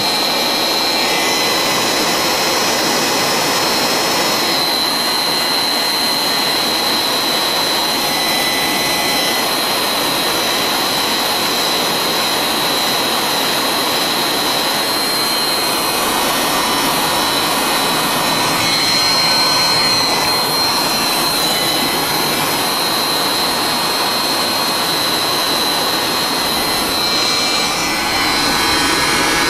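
Electric heat gun running steadily, its fan blowing hot air with a constant high whistle, shrinking heat-shrink tubing over soldered wire joints. It stops near the end.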